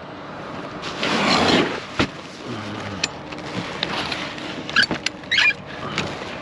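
Handling noises from a scrapped metal chair being picked up: a rustling scrape, several sharp knocks and clicks, and a short squeak about five seconds in, over a vehicle engine idling.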